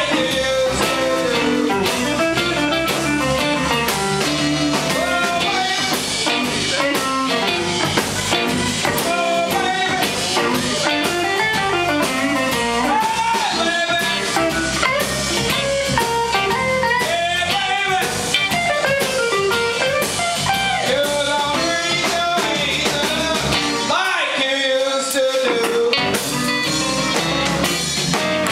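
Live blues band: a woman singing over electric guitars, bass guitar and drum kit. About 24 seconds in, the bass and drums drop out for about two seconds, then the full band comes back in.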